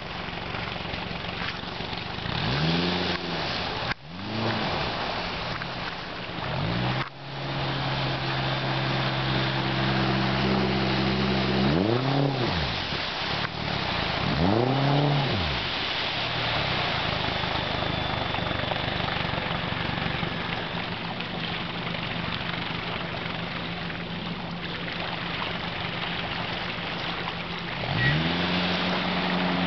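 Jon boat's 60/40 jet outboard motor revving up and falling back in four quick swells, then running steadily under way, over a steady hiss; the revs climb again near the end.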